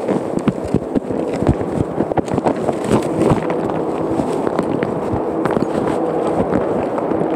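A phone microphone rubbing and knocking inside a knitted pouch as it is carried along, giving a dense, irregular crackle of cloth rustle and small knocks. A faint steady hum runs underneath.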